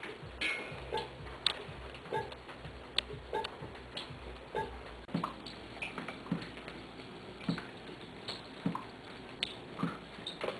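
Water dripping through a leaking, rotting roof, drops landing about twice a second, each a short pitched plink.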